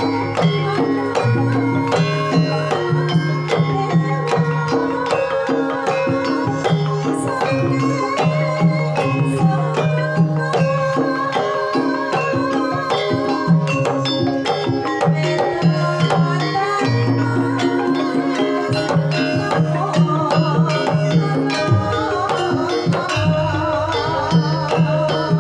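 Javanese gamelan music: bronze metallophones and gongs ringing over a steady pulse of struck notes, driven by kendang hand-drum strokes, with a wavering melodic line over them at times.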